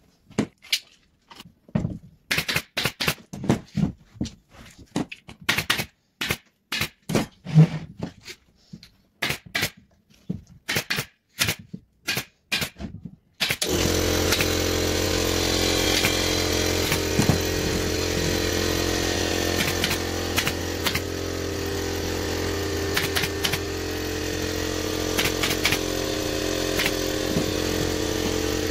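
Irregular sharp knocks and clicks of hand work on wood. About halfway through, a power tool's electric motor starts and runs steadily, with a few clicks over it.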